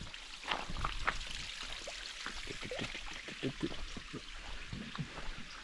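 Creek water trickling and splashing over rocks, with many small irregular plops and gurgles.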